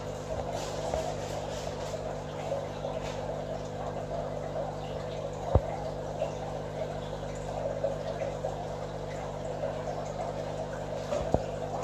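Aquarium filter or pump equipment running: a steady hum with water burbling over it, and a single sharp tap about five and a half seconds in.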